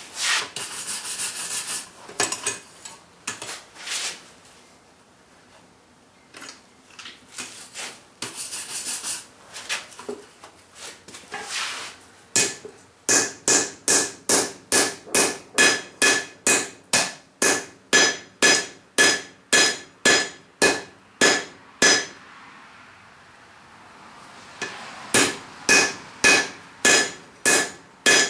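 Hand hammer striking hot steel on an anvil while forging the hammer-head blank into a hide scraper blade. A few irregular clanks of tools and metal come first, then a steady run of ringing blows about two a second, a pause of a few seconds, and the blows start again near the end.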